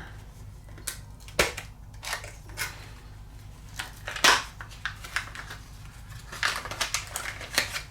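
Packaged RC axle parts being handled on a workbench: scattered small clicks and knocks, the sharpest about four seconds in, then a quick run of crinkling and rattling near the end.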